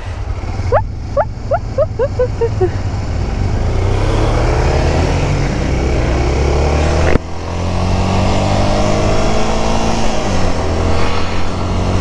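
Motorcycle engine accelerating hard, its pitch climbing steadily with a sudden break and a gear change about seven seconds in, then climbing again, over wind noise on the microphone.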